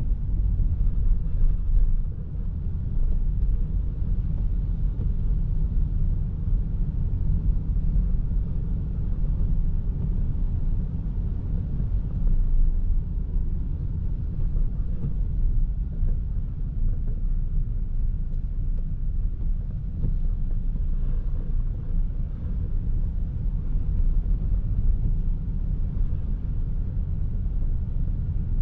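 Toyota Prius α driving on a wet road: a steady low rumble of road, tyre and wind noise with no separate events.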